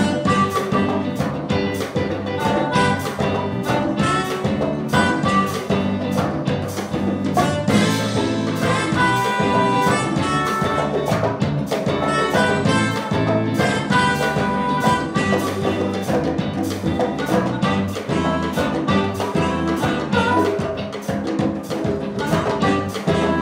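Live jazz-funk band playing with a steady drum-kit beat. A chromatic harmonica plays over saxophone and guitar.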